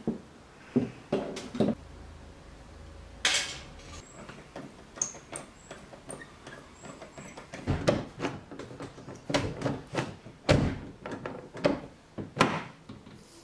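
Car door handle and latch clicking, then a run of sharp clunks in the second half as the exterior handle is pulled and the door is opened and pushed shut several times: the handle has been refitted and now works.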